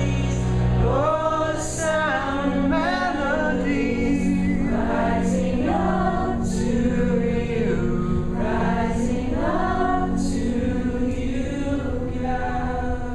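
Live worship music: several voices singing a slow melody together, over steady sustained low accompaniment.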